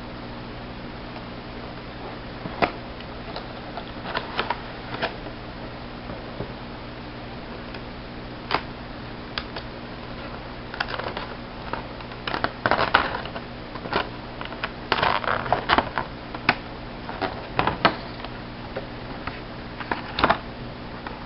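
Scattered clicks, taps and short rustles from the box and plastic packaging of a diecast model airliner being unboxed, over a steady low hum.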